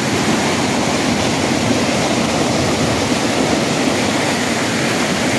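A swollen river in flood pouring over a low concrete weir and churning into whitewater below: a steady, loud rushing of water.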